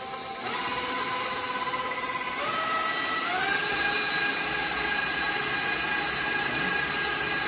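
Electric stand mixer running with its paddle, creaming butter and sugar. The motor whine steps up in pitch twice, about two and a half and three and a half seconds in, as the speed is raised.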